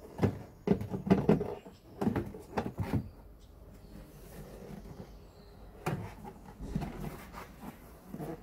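Plastic rear light unit of a Peugeot 307 being pulled free of the car's body: a quick run of hard plastic knocks and clicks in the first three seconds as it comes away, then lighter knocks and rubbing as the loose unit is handled.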